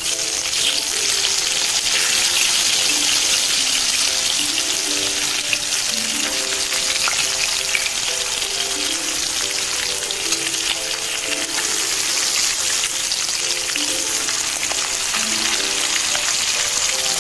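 Pieces of catla (katla) fish frying in hot oil in a kadai, a steady dense sizzle. A soft background melody plays underneath.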